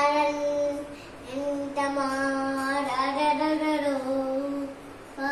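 A young child chanting a Hindu prayer in a sing-song voice, holding long steady notes in two phrases with a short breath about a second in.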